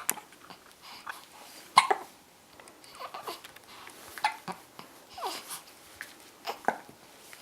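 A baby hiccuping: four sharp hiccups about two and a half seconds apart, with soft babbling sounds between them.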